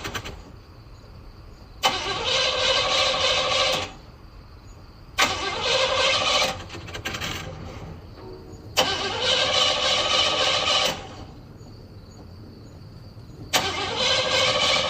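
Car engine being cranked by its starter motor in repeated attempts that fail to start it: four cranking spells of about two seconds each, each beginning with a sharp click, separated by pauses of a second or two.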